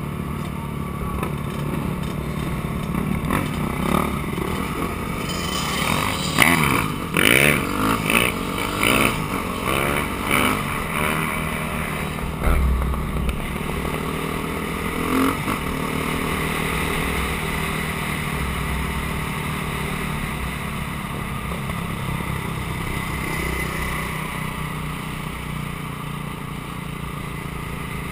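Dirt bike engines revving and pulling away, rising in pitch through several gear changes about six to eleven seconds in. After that the engine runs steadily while riding at speed.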